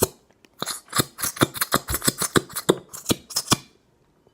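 Rapid, uneven clicking and tapping, about six or seven knocks a second for around three seconds, then it stops: a plastic glue bottle being tapped and shaken to work out very thick glue that won't come out.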